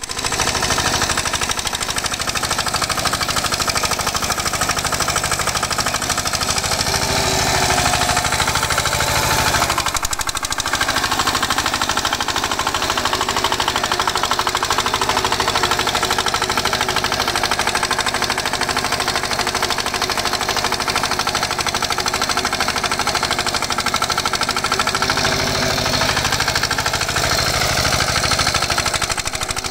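Small single-cylinder 6.5 hp diesel engine of a walk-behind power tiller running under load while its rotary tines till soil: a fast, steady, knocking chug. It dips briefly about ten seconds in.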